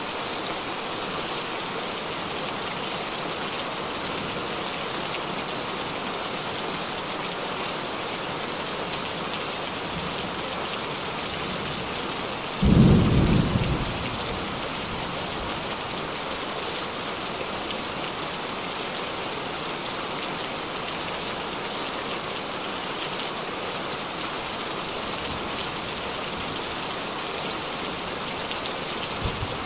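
Heavy rain falling steadily on lake water and grass, a dense even patter. A brief low rumble about thirteen seconds in.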